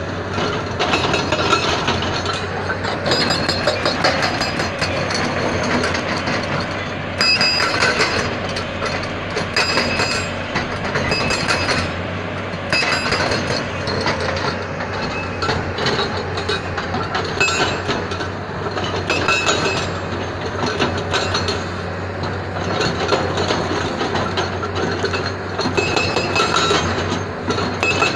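SSI SB81 hydraulic breaker's chisel hammering into boulders: a rapid, continuous stream of metallic blows, louder in stretches of a second or so, over a steady low hum.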